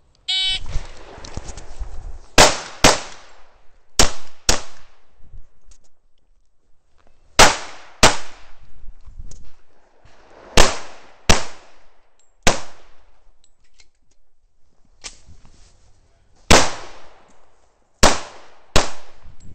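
Dan Wesson PM7 .45 ACP 1911 pistol fired close to the microphone in a stage course of fire: sharp shots, mostly in pairs about half a second apart, with pauses of a second or more between pairs as the shooter moves between positions, each shot trailing off in a short echo. A brief beep sounds just before the first shots.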